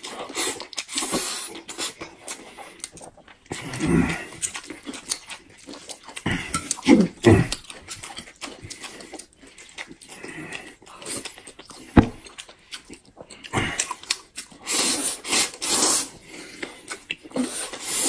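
Two people slurping noodles and chewing loudly, in repeated bursts of wet sucking slurps and mouth smacks. There is a single sharp click about two thirds of the way through.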